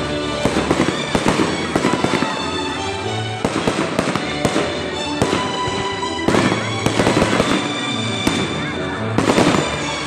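Aerial fireworks going off in clusters of rapid bangs and crackling, with music playing underneath.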